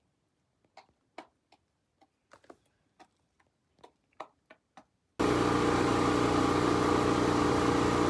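A few faint scattered clicks, then a loud steady machine hum that starts suddenly about five seconds in and cuts off abruptly near the end.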